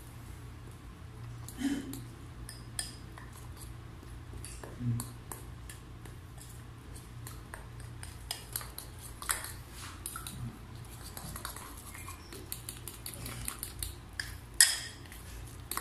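Metal spoon stirring thick pancake batter in a ceramic bowl, clinking and scraping against the bowl in irregular taps that come faster in the second half, with one louder clink near the end. A faint steady low hum lies underneath.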